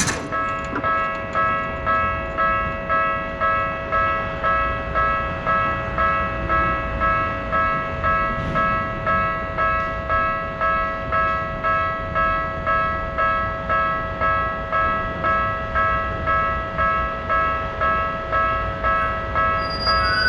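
Japanese level-crossing warning bell ringing steadily, its strikes repeating in an even, quick rhythm, each one swelling and fading, over a low rumble.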